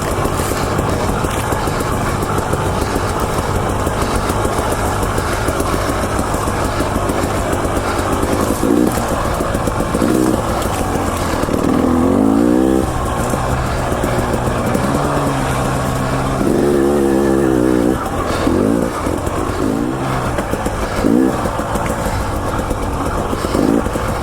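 KTM 300 XC-W TPI's single-cylinder two-stroke engine being ridden, the revs rising and falling with the throttle, with a run of quick revs in the second half.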